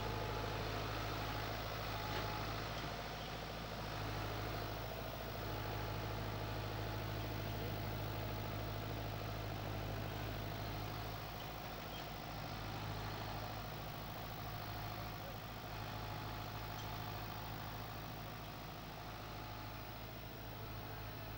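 Farm tractor's diesel engine running steadily at low speed as it slowly tows a trailer.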